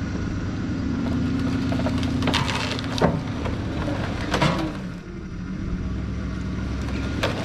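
Cut logs dragged off a flatbed trailer by a chained pickup in low range: wood scraping and creaking, with several sharp cracks and knocks, over the pickup's engine running steadily under load.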